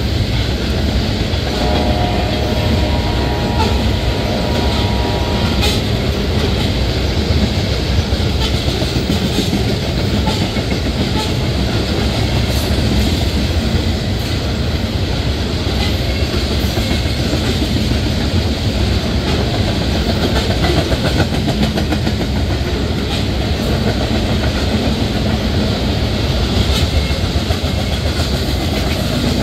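Loaded freight tank cars rolling past on steel wheels: a loud, steady rumble on the rails with scattered clicks as the wheels cross rail joints.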